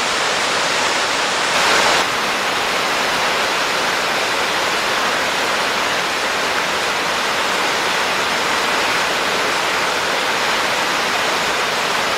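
Steady rush of a waterfall on a creek, a dense even hiss of falling water that swells briefly just under two seconds in.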